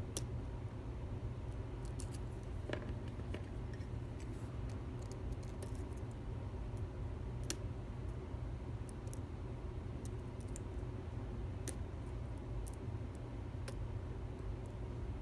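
Lock picks working inside a challenge lock: irregular light metallic clicks and ticks from the picks and pins, over a steady low hum.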